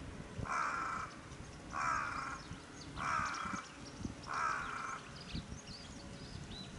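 A crow cawing four times, about a second and a quarter apart, with small birds chirping faintly in the background.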